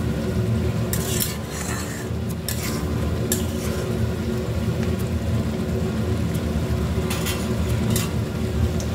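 Metal spatula stirring thick chicken curry in an iron kadai, with scattered scrapes and clinks of metal on the pan. Underneath is the steady sound of the gravy simmering.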